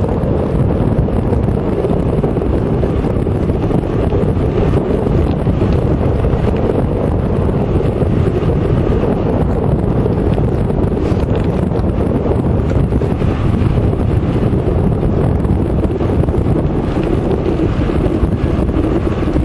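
Steady wind noise buffeting the microphone as it moves along on an electric bike.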